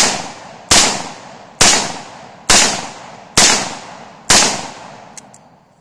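Taurus Model 66 .357 Magnum revolver firing steady single shots, six in all about 0.9 s apart, each crack trailing off into echo before the next. Two faint clicks follow near the end.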